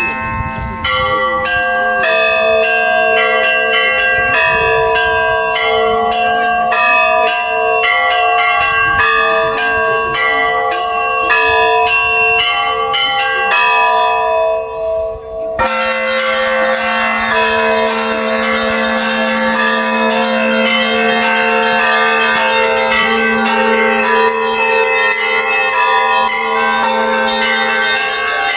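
Russian Orthodox church bells ringing a festal peal. Many bells are struck in a quick, rhythmic interplay over the long, steady hum of a deeper bell. About halfway through, the ringing changes abruptly to a new pattern.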